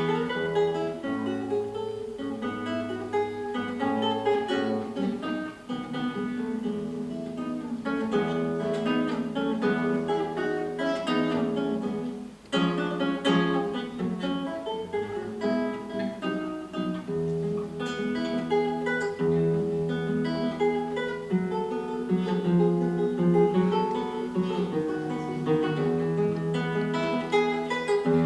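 Solo acoustic guitar playing a piece: plucked melody over chords and low bass notes, with a short break in the playing about twelve seconds in.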